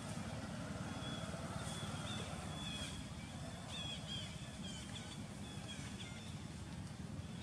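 Outdoor background noise: a steady low rumble with a scattering of faint, high-pitched chirps from about a second in until near the end.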